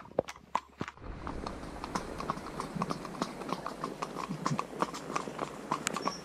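Horses' hooves clopping at a walk on a wet tarmac lane, a steady run of sharp clicks, with an even hiss joining in about a second in.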